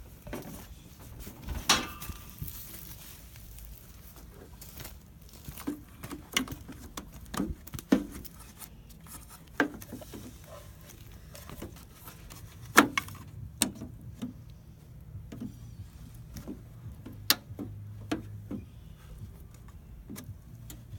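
Irregular clicks and knocks of a plastic turn signal lens and its fittings being handled and pushed into place on a 2001 Dodge Ram 2500. A few sharper clacks stand out, the loudest about two-thirds of the way through.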